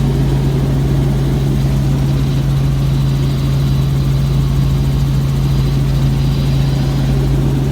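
Helicopter in flight, a loud steady drone of engine and rotors with a constant low hum.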